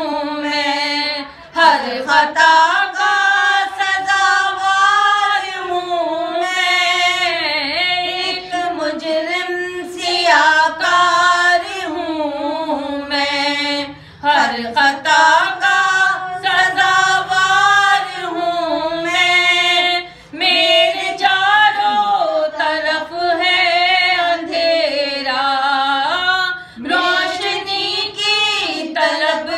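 Two women singing a devotional Urdu manqabat unaccompanied, in long held, wavering melodic lines with brief pauses for breath.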